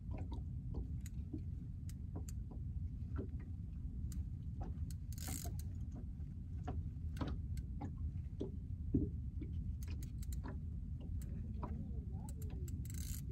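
Shakespeare ultralight spinning reel being cranked while playing a hooked redfish, giving irregular clicks and ticks over a steady low rumble. Two brief hisses, about five seconds in and near the end.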